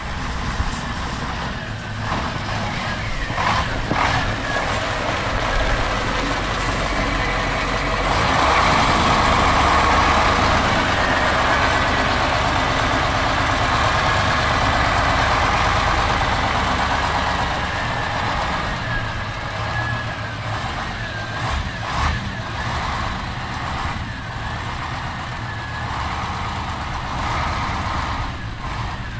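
Ural army truck with a box body driving past on a snowy road. The engine swells loudest about eight seconds in as the truck comes close, then eases off as it pulls over to park.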